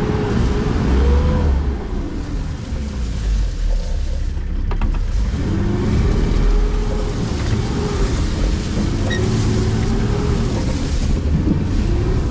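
Off-road 4x4's engine revving under load on a trail, in several long rises and falls of pitch over a heavy low rumble, with a sharp knock about four and a half seconds in.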